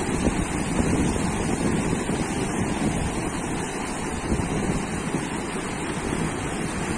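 Sea surf washing onto a beach in a steady rush, with wind buffeting the microphone.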